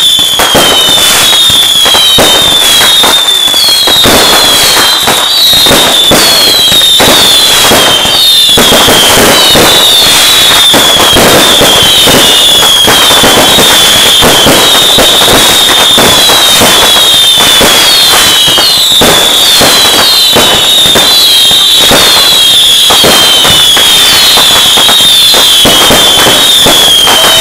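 Fireworks going off in a dense, continuous barrage of bangs and crackles. Through it runs a steady string of falling whistles, a new one about every half second.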